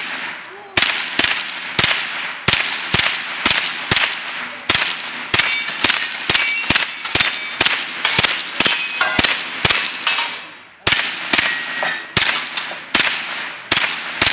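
Sig Sauer 522 .22 LR semi-automatic rifle firing fast strings of shots, about two or three a second with a short pause about two-thirds of the way in, at steel targets that ring with a clang after many of the hits.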